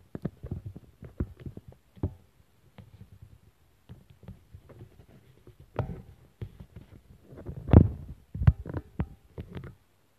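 Handling noise on a phone's microphone: irregular clicks, rubbing and low thumps, busiest in the second half, with the loudest thump about eight seconds in.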